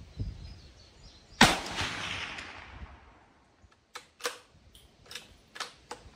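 A single shot from a Rossi RB22M .22 WMR rifle firing a Hornady 30-grain V-MAX round: one sharp crack with a long echoing tail that fades over more than a second. A couple of seconds later come about six short, sharp clicks.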